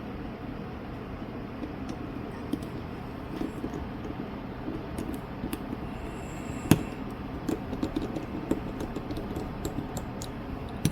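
Light, irregular clicks and taps of small repair tools and parts during a smartphone repair, with one sharper click about two-thirds of the way in, over a steady low hum.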